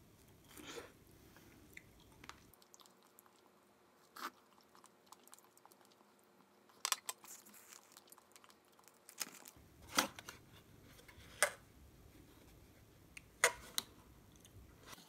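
Pages of a paper instruction booklet being turned and handled: soft rustling and crackling, with a handful of sharper paper crackles scattered through.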